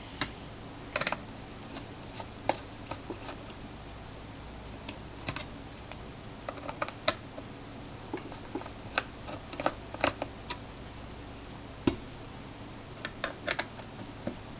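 Small Phillips screwdriver loosening tiny screws on a laptop hard drive case, giving light, irregular clicks and taps of metal on metal.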